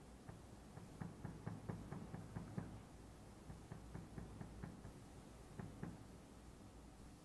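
Faint, irregular light taps and clicks, a few a second, over quiet room tone, dying away near the end.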